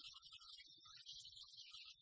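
Near silence: faint hiss and low rumble.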